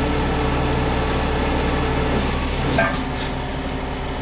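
Tow truck engine running steadily at idle while its winch slowly pulls in, hauling a wheelless car body on dollies out of a garage.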